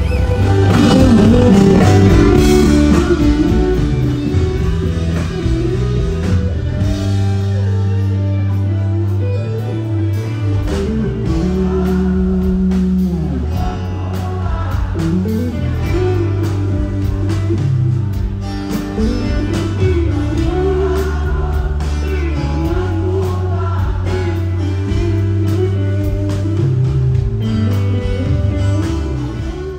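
Rock band playing a song: electric guitar, bass and drums with a sung vocal line. The music drops away at the very end.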